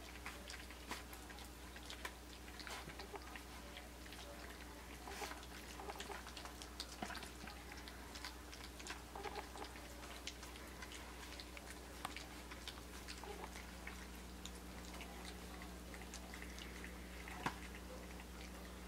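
Australian Shepherd puppies lapping and smacking at wet puppy mush in a metal tray: a faint, irregular patter of small wet clicks and licks.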